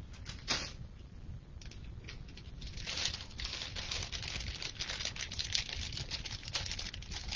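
Plastic zip ties rustling and clicking as they are rummaged through and handled, a few sharp clicks at first, then a dense crackle of rustling from about three seconds in.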